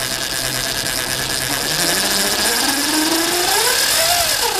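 Lightning Rods Big Block mid-drive electric bike motor spinning up under throttle, driving the chainring and chain. Its whine rises steadily in pitch for about three seconds, then drops quickly near the end. The motor is running on a phase and hall wire combination that the owner isn't sure is correct, and he isn't sure it is supposed to sound like that.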